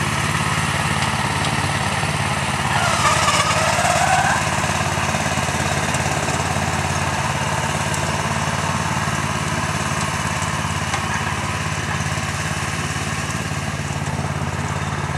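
Merry Tiller's small gas engine running steadily under load as its tines churn through garden soil. A brief, higher wavering sound rises over it about three seconds in.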